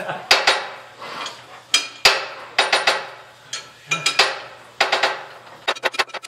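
Repeated sharp metal-on-metal clanks with ringing, about a dozen irregular strikes and then a quicker run near the end, from a hand-operated screw press being worked hard to force a seized pin out of a 1930 Model A Ford front axle assembly while the part is heated with a torch.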